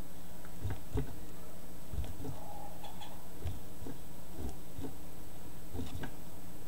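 Irregular light clicks and low knocks, about one or two a second, from a hand-worked magnet lever nudging a fidget spinner on a wooden board to keep it turning, over a steady low hum.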